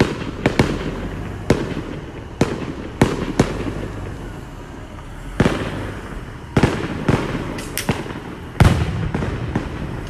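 Aerial fireworks bursting: over a dozen sharp bangs at irregular intervals, each trailing off in a fading echo, the biggest one about three-quarters of the way through.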